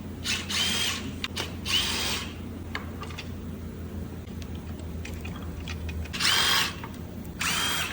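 Cordless power tool run in four short bursts, each with a motor whine that rises and then holds steady, as bolts are loosened while stripping an engine's timing chain and guides.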